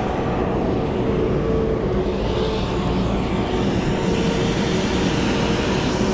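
Riding an Apollo Pro electric scooter: a steady rumble of wind buffeting the chest-mounted microphone, mixed with tyre and road noise, and a faint electric motor whine that comes and goes.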